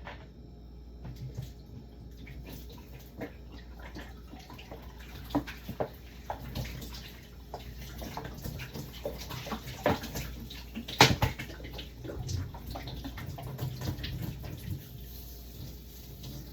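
Kitchen handling sounds: irregular light knocks and clatter of containers and utensils, with one sharper knock about eleven seconds in.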